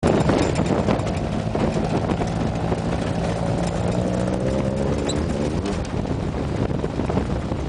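Engine of an open off-road buggy running as it drives over a dirt flat, with wind and tyre noise buffeting the microphone. The engine note fades under the wind noise a little past halfway.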